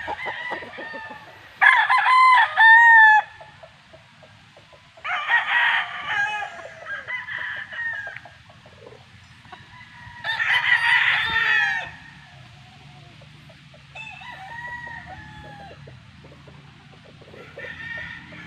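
Gamefowl roosters crowing: three loud crows of about a second and a half each, about two, five and ten seconds in, with fainter crows and calls later.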